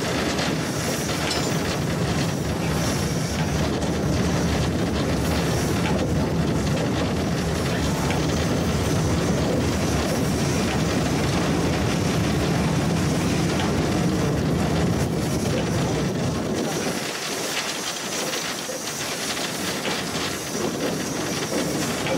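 Steam locomotive 434.2186 moving slowly over the tracks and points, heard from its own cab: running gear and wheel-on-rail noise under a steady hiss of steam. The low rumble drops away about three-quarters of the way through.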